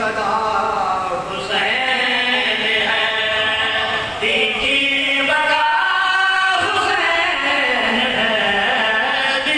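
A man's voice chanting a sung mourning lament in long, drawn-out melodic phrases, each note held for a second or more before the pitch moves on.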